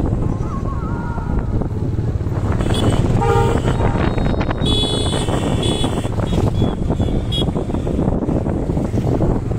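Steady rumble of wind and road noise from a moving TVS Raider 125 motorcycle. A vehicle horn toots once about three seconds in, and brief high-pitched tones sound about five seconds in.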